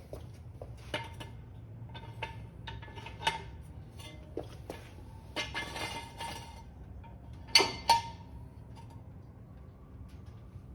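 Metal tools clinking and knocking in irregular sharp taps with a short ringing tone. A brief rattling stretch comes about five and a half seconds in, and two loud clanks follow close together about two seconds later.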